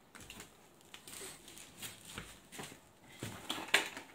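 Quiet scrapes and taps of a trowel spreading adhesive onto a basalt mineral wool slab, with a few sharper clicks a little before the end.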